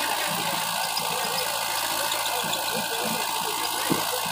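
Tractor diesel engine running steadily at idle, with one sharp knock near the end.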